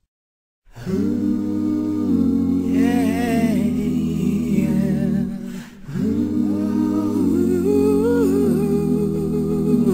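Song intro with wordless humming vocals over a held low drone, starting under a second in and running in two long sung phrases with a brief break about halfway.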